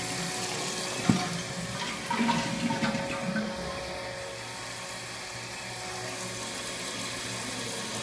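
Steady rushing hiss like running water, with one sharp knock about a second in and a little clatter a second or two later.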